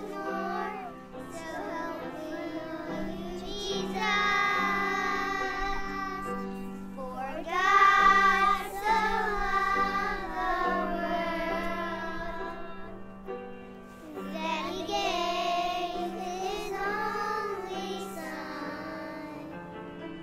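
A group of young children singing a song together, with the loudest passage about eight seconds in.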